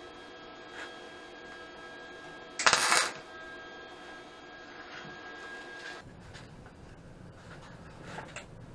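A brief burst of MIG welding crackle, about half a second long, laid on a small metal plate, over a steady electrical hum. Near the end, a few light metallic clicks of small parts being handled.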